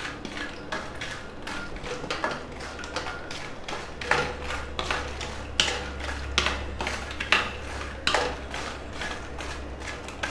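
Wooden spatula stirring fox nuts (makhana) being roasted in ghee in an iron kadhai: repeated scrapes against the pan and the light, puffed seeds rattling, roughly one or two strokes a second. A low hum joins about four seconds in.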